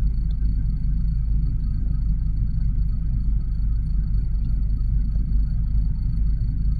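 Steady low rumble of a freight train of covered hopper cars rolling across a road crossing, heard from inside a car's cabin.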